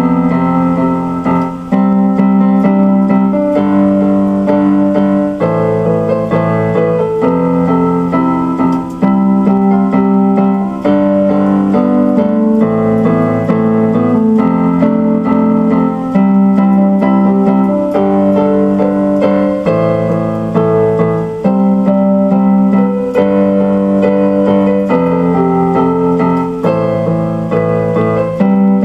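Keyboard music: piano-like chords played steadily, changing about every one and a half to two seconds.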